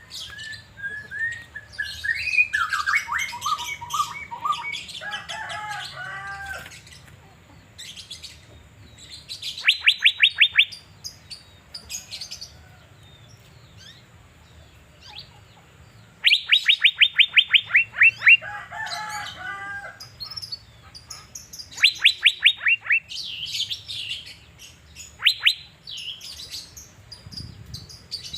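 Asian fairy-bluebird singing in full voice: warbled phrases broken by four quick runs of sharp, falling whistled notes.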